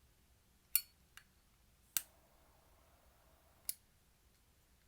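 Four sharp metallic clicks from a Zippo lighter being handled, the first and third the loudest, spaced irregularly over a few seconds.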